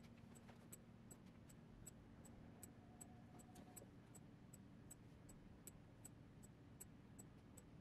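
Faint, sharp, high ticks coming irregularly about three times a second over a low steady hum.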